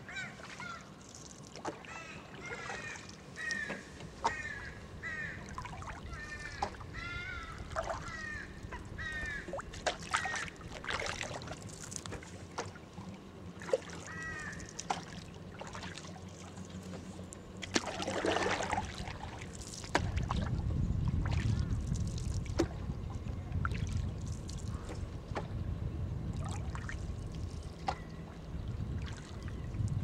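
Bird calls repeated over and over through the first half, with scattered light knocks. From about two-thirds of the way in, a low steady rumble takes over.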